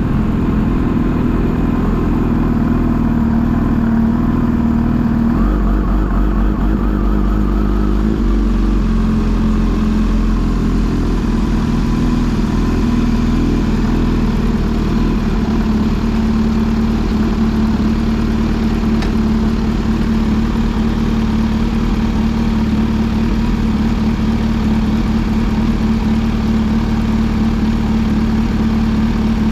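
Kawasaki Z H2 SE's supercharged inline-four engine running at a steady, even pitch, with a loud low rumble beneath it.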